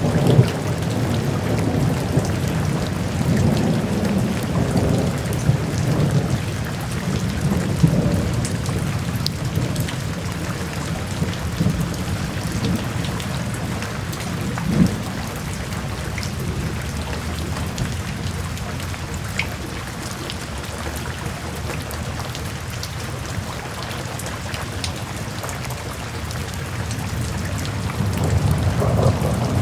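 Steady rain with low rolling thunder, a rain-and-thunderstorm background track. The rumble swells near the start and again near the end, with one sharp crack about halfway through.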